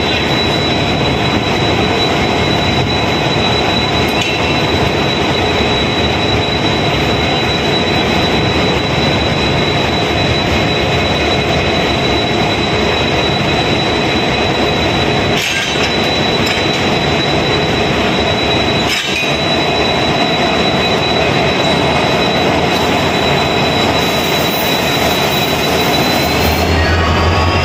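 WDG4D diesel locomotive running at a standstill: a loud, steady engine rumble with a high, steady whine over it, and two brief knocks a few seconds apart in the middle. Near the end the whine rises in pitch and the low rumble grows louder as the engine speeds up.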